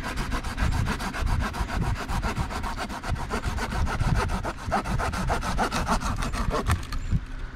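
Folding hand saw cutting through a dead, slightly damp tree branch in rapid, even back-and-forth strokes that stop near the end.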